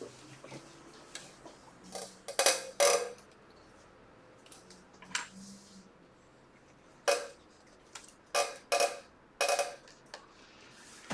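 Small metal hand tools and tiny screws clicking and clinking against an open laptop and a wooden workbench as a logic board is unscrewed. There are several sharp clicks at uneven intervals with quiet gaps between them.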